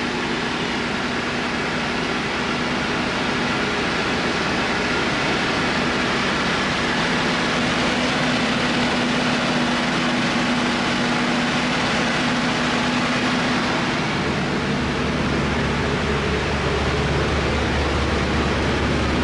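Rotax engine of a homebuilt helicopter running steadily; a deeper low hum comes in strongly about fifteen seconds in.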